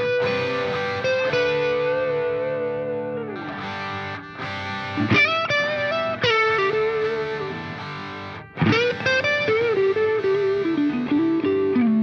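Background music: a distorted electric guitar playing sustained lead notes that bend in pitch, with short breaks between phrases.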